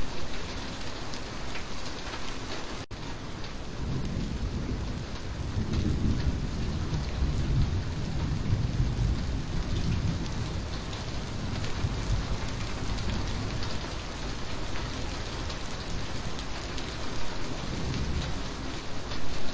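Steady heavy rainfall with thunder rumbling low for several seconds through the middle. There is a momentary break in the sound about three seconds in.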